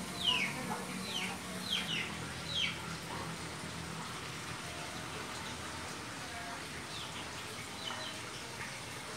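A bird calling in short, quick chirps that slide downward in pitch: about four in the first three seconds, then a few fainter ones around seven to eight seconds in, over a steady faint hiss.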